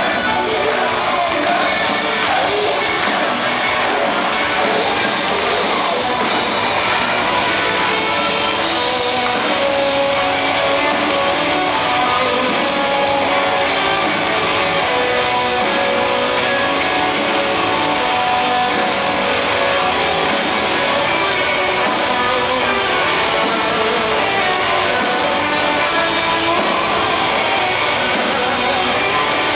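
Live rock band playing loud and steady, with electric guitar and drums and vocals, heard from within the audience.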